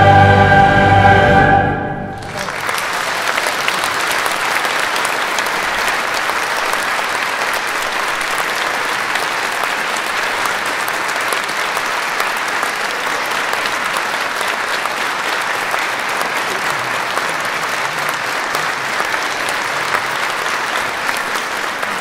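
Choirs and a wind band hold a loud final chord that stops about two seconds in, followed by steady audience applause.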